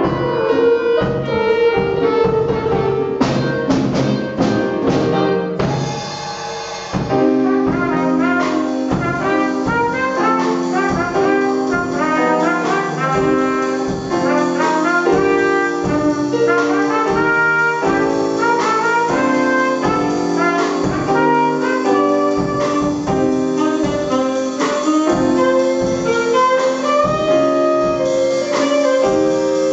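A student jazz band plays live: drum kit, keyboard and electric guitar under saxophones and horns. A run of hard drum hits about three to five seconds in leads to the full band coming in together around seven seconds, holding chords over a steady beat.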